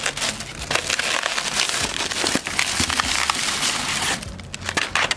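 Thin plastic carrier bag rustling and crinkling as it is handled close to the microphone, a dense crackle that eases off about four seconds in.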